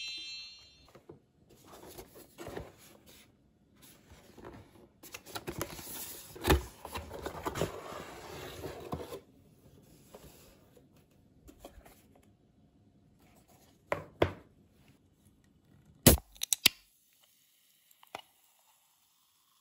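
Paper and silicone rustling as a recipe booklet and a silicone mould are handled, then a few sharp clicks and, near the end, the loudest sound: the snap of a Chilsung Cider can's pull-tab opening, with a brief fizz.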